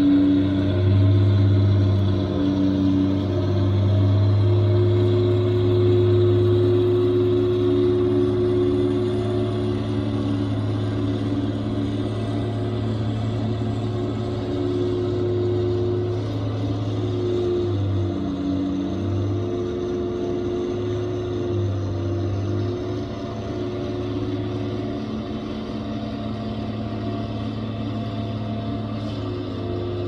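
Diesel engines of snow-removal machines, a wheel loader and dump trucks, running steadily with a low drone that wavers briefly about eighteen seconds in.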